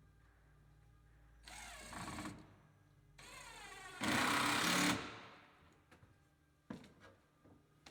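Power drill driving screws in two runs, its motor whine gliding in pitch. The second run grows loudest as the screw is driven home. A short knock follows near the end.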